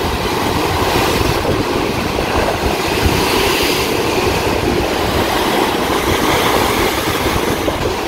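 Strong, steady wind buffeting the microphone over a stormy sea, with waves breaking and churning against a concrete breakwater. It is one continuous rumbling noise without pauses.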